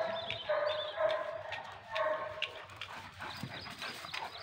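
Dogs yelping in short high-pitched cries, three or four in the first two seconds and fainter after that.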